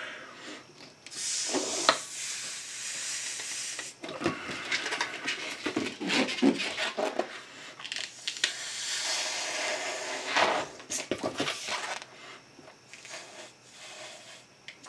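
A long pink twisty balloon blown up by mouth in long, hissing breaths, then the inflated rubber squeaking as it is twisted into bubbles near the end.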